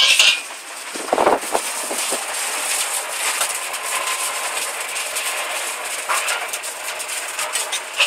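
Noodles sizzling in a hot wok, a steady hiss with many small clinks and scrapes from the metal ladle and spice spoon against the pan and steel spice tin, with a short louder clatter about a second in.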